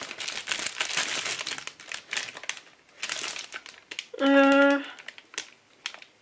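Clear plastic flower sleeve crinkling and rustling as it is handled, in two spells. About four seconds in there is a short hummed voice sound, followed by a few light clicks.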